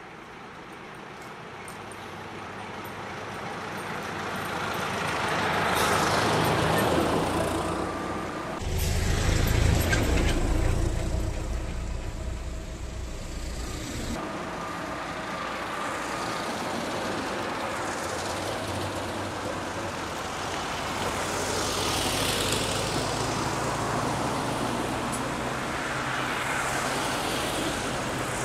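Old vehicles driving past one after another: a vintage bus engine swelling as it approaches and passes, then, after abrupt jumps in the sound, a loud low engine section and a column of old cars led by a Lada, each passing with rising and falling engine and tyre noise.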